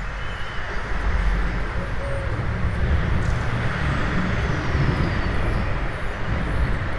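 Steady rumble of town traffic, with faint high bird chirps repeating evenly above it.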